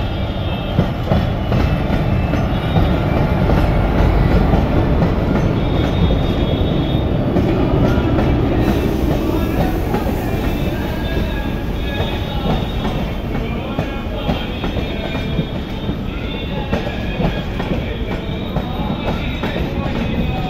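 Humsafar Express passenger train, an electric locomotive and its LHB coaches, rolling past at departure: a steady rumble and clatter of wheels on the track, with brief high-pitched wheel squeals now and then.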